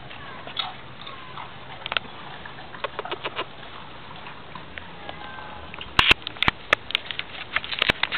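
A quick run of sharp clicks and knocks starting about six seconds in, over a low background with a few faint, short chirps.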